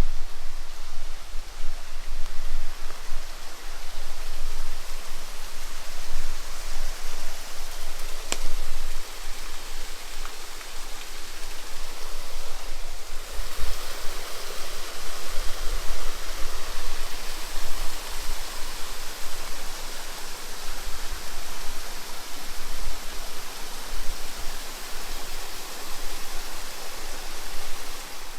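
Mountain stream rushing over small cascades, a steady rushing hiss that grows brighter about halfway through.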